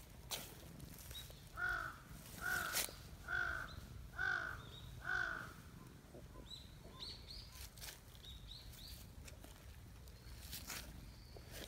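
A crow cawing five times in an even series, about one call a second, then stopping; faint small-bird chirps follow.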